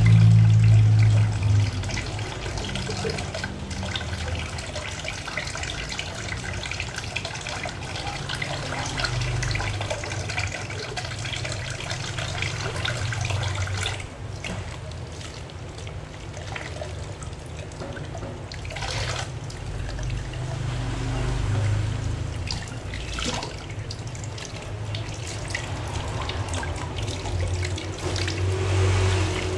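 Kitchen tap running into a stainless steel sink while a clear tumbler is scrubbed with a sponge and rinsed under the stream, with a few light knocks. The water noise grows quieter about halfway through.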